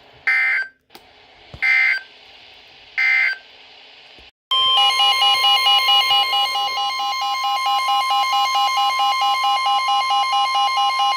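Emergency Alert System signalling: three short, harsh bursts of digital end-of-message data code about a second and a half apart, marking the end of the previous alert. Then, about four and a half seconds in, a loud alert tone starts: one steady pure tone under a rapidly pulsing beeping of several tones.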